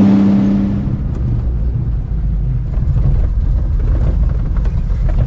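Honda Acty mini truck heard from inside its cab. For about the first second the engine drones with a steady tone. Then low road rumble and rattling knocks of the cab come in as the truck drives over a rough dirt road.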